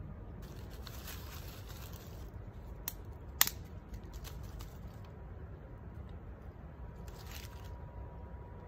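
Dry grass, leaves and small sticks rustling and crunching as a small flint-and-steel tinder fire of dry grass and fatwood is handled, with two sharp snaps about three seconds in, the second much the louder.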